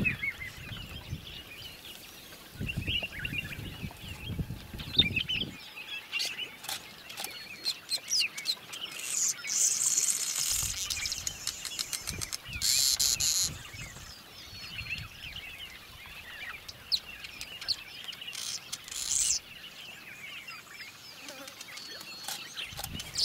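Wild birds chirping and calling over and over in the African bush, with a few short bursts of high hissing buzz and a low rumble at times.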